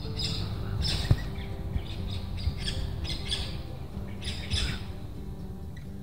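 Australian king parrots giving repeated short, high calls, which stop about five seconds in, over soft background music with held notes. A single knock sounds about a second in.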